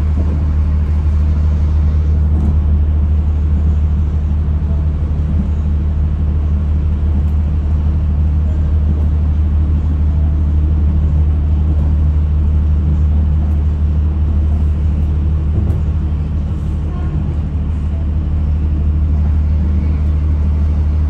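Steady low rumble and hum of a moving diesel commuter train, heard from inside the carriage.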